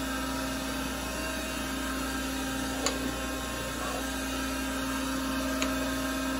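DoALL surface grinder running, its spindle spinning the grinding wheel with a steady hum while the automatic table feed carries the work back and forth; the wheel is still clear of the part, not yet grinding. Two short sharp clicks come about three seconds in and again near the end.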